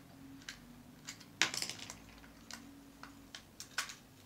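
Scattered small clicks and taps of a tiny screwdriver and the plastic case of a hand-held RC controller being handled, with a louder clatter about a second and a half in.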